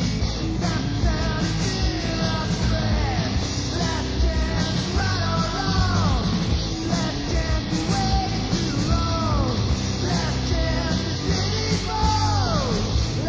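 Punk rock band recording: electric guitar, bass and drums playing continuously, with a yelled vocal and repeated falling pitch swoops.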